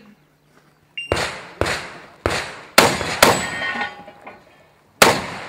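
Shotgun firing six shots: five in quick succession about half a second apart, then a pause of nearly two seconds before the sixth. A ringing tone lingers after some of the shots.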